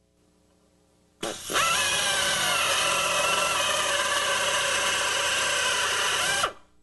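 Electric drill with a larger bit cutting the heads off the factory rivets that hold an upper ball joint in a control arm. The drill spins up about a second in, runs steadily while boring, then winds down and stops near the end.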